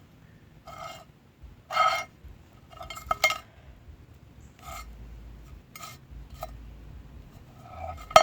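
A series of short, ringing clinks and taps of hard objects, about eight spread unevenly, the loudest near two seconds and just before the end, over a faint low hum.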